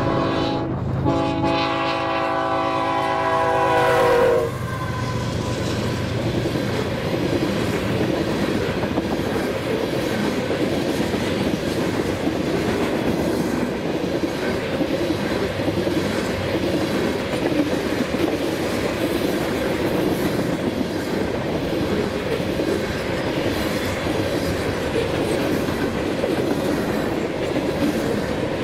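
Freight train locomotive horn sounding a short blast, then a longer one that ends about four seconds in. After it, the steady rumble and wheel clatter of freight cars rolling past.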